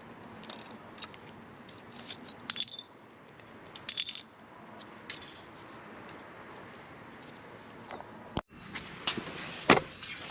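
A thin copper gasket sheet and small metal tools being handled, giving scattered light clinks and rattles; the loudest clink comes near the end.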